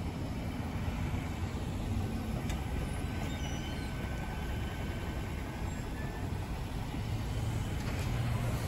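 Steady low rumble of motor vehicles, with no sharp events.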